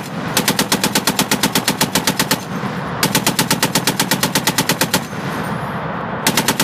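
M2 Browning .50 caliber heavy machine gun firing in bursts, about nine shots a second. There is a two-second burst shortly after the start, another about three seconds in, and a short one beginning near the end, with the report echoing across the range between bursts.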